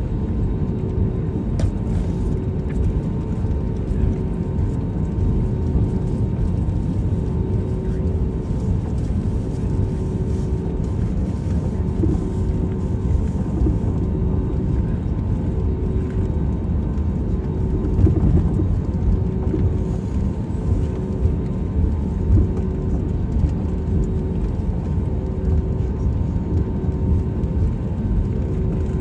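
Airbus A320neo cabin noise while taxiing: a steady low rumble from the engines and the wheels rolling on the taxiway, with a faint hum that pulses on and off about every second and a half. There is a slightly louder bump about eighteen seconds in.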